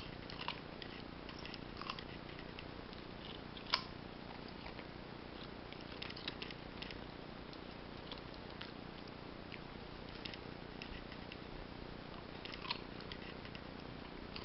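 Belgian shepherd mix puppy gnawing a raw carrot: irregular crisp crunches and clicks of teeth biting into it, with pauses between bites. The sharpest crunch comes about four seconds in.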